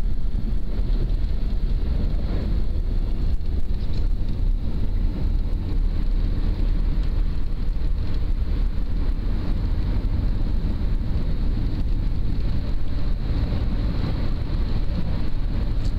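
Steady low rumble of a 4x4 driving along a wet sealed road, with engine and tyre noise heard from inside the cabin.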